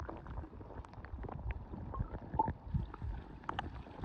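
Muffled rush and gurgle of river current heard through a submerged camera, with scattered small clicks and knocks.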